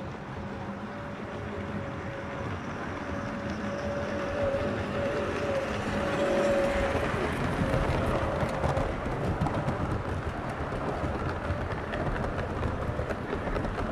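A 7mm-scale model steam locomotive and its coaches running along the track, a steady motor hum and wheel rumble growing louder as the train approaches. The hum fades about two-thirds of the way through, leaving the rumble and light clicking of coach wheels passing close by.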